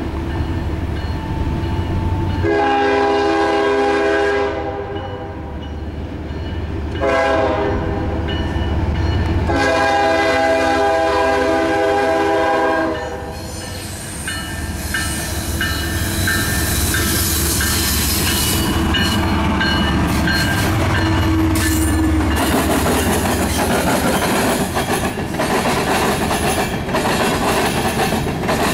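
Norfolk Southern GE ES44DC diesel locomotive sounding its air horn in a long blast, a short blast and another long blast over the low rumble of its engine. A bell then dings about twice a second, and from about two-thirds of the way in the covered hopper cars roll past with a steady clatter of wheels on the rails.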